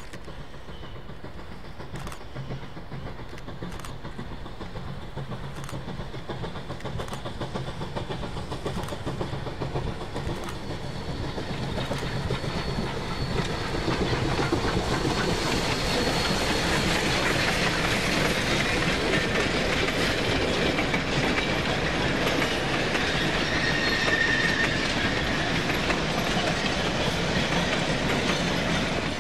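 A Durango & Silverton K-28 2-8-2 narrow-gauge steam locomotive working hard with a freight train, its exhaust beats growing louder as it approaches, passing about halfway through. Then the steady rumble and clickety-clack of the freight cars and caboose rolling by, with a brief high wheel squeal near the end.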